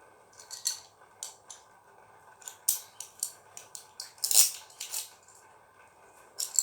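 Irregular light clicks and taps of a small toy spinning top being handled, about a dozen spread over several seconds, the loudest just past four seconds in.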